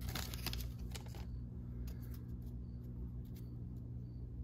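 Trading cards sliding out of a foil pack wrapper with a crisp rustle for about the first second, then faint light taps as the card stack is squared in the hands.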